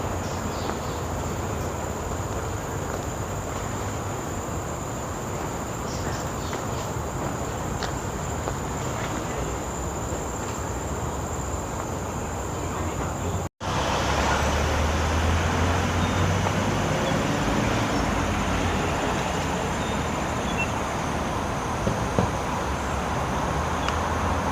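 Outdoor ambience of steady road traffic hum under a constant high-pitched insect drone. The sound cuts out for an instant about halfway through, and then a louder low rumble from traffic swells for a few seconds.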